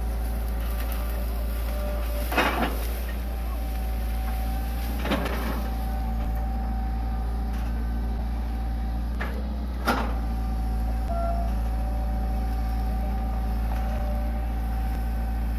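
Hitachi EX120 long-arm excavator's diesel engine running steadily as the machine works, with a steady high whine. Three short knocks stand out, a couple of seconds in, around five seconds and around ten seconds, as the bucket works through piled banana stems.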